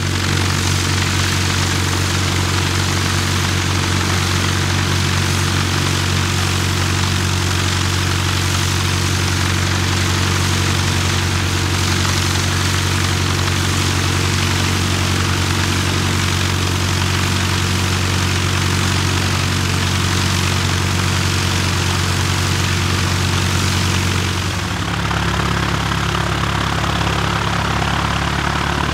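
Piper PA-28-180 Cherokee's four-cylinder Lycoming O-360 engine and propeller running at low power on the ground, a steady, loud note. About 25 seconds in, the engine note shifts as the aircraft starts to move.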